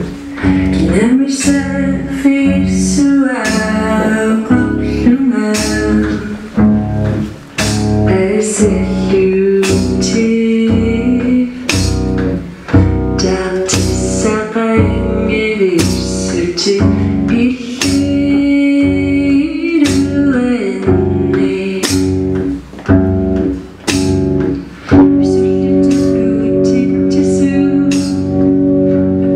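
Live band performance of a song: a woman singing into a microphone, accompanied by a guitar played flat across the lap and a steady low beat.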